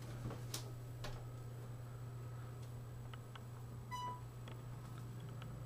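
Steady low hum with a few faint clicks, and one short electronic beep about four seconds in.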